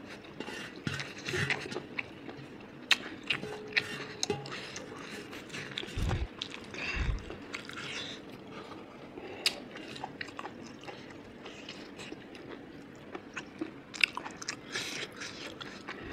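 Close-up eating sounds: a person chewing with the mouth closed, with scattered small clicks and crunches as fingers pick food off the plate. Two dull low thumps come about six and seven seconds in.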